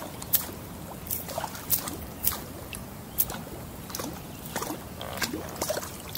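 Whopper Plopper topwater lure retrieved fast across the water surface, its spinning tail splashing and plopping in an uneven run of short, sharp splashes, about two a second.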